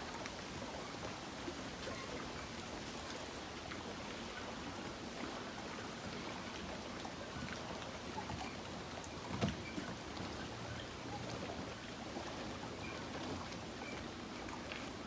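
Steady lakeside outdoor ambience: an even hiss with scattered light ticks, and a single short knock about nine seconds in.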